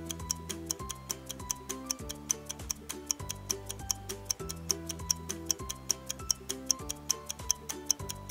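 Countdown-timer ticking, fast and even at about four ticks a second, over light background music with a stepping bass line.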